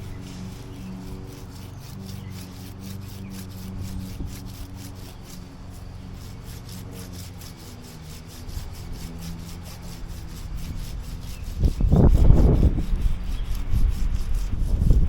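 Lawn mower engine running steadily, with an even rasping rhythm. About three quarters of the way in, loud gusts of wind start buffeting the microphone.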